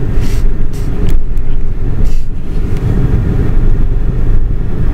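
Car interior driving noise: a steady low rumble of road and engine heard inside a moving taxi cab, with a few brief knocks in the first second.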